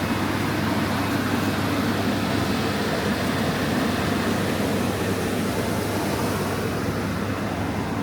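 Steady low rumble and hum of a large supermarket's indoor background noise, with no clear single event.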